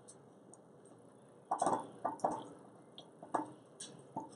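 Salted cabbage, carrot and daikon pieces squishing and crunching as a hand packs them down into a glass jar to press the air out, in a few short separate squishes starting about a second and a half in.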